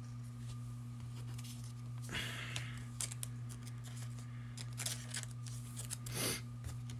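Quiet handling noises at a table: scattered light clicks and two brief rustles, about two seconds in and again past six seconds, over a steady low electrical hum.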